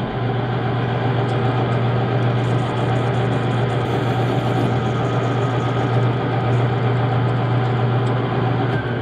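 Metal lathe running with a steady, loud hum, its chuck spinning a piece of galvanized steel ducting that is being turned into a shim.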